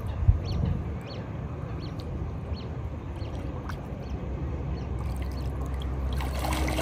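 Lake water sloshing and swirling around an angler's waders as a carp is released and swims off, with a short thump just after the start and a low rumble that grows stronger through the second half.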